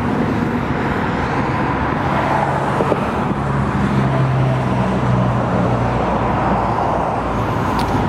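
A 1970 Corvette's matching-numbers 350 V8 idling through side exhaust pipes, a steady running sound with a low hum that strengthens around the middle.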